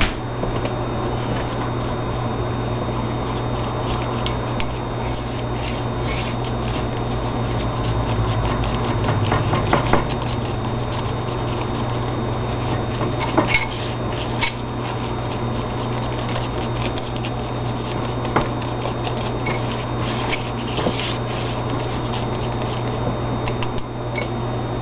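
Thick batter being stirred in a bowl to mix in hot sauce: irregular scraping and rubbing with occasional light knocks of the utensil on the bowl, over a steady low hum.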